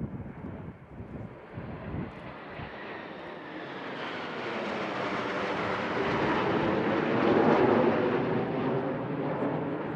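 PZL TS-11 Iskra jet trainers flying past: the jet noise swells over several seconds, loudest about three-quarters of the way through, with a high whine that slides down in pitch as it builds.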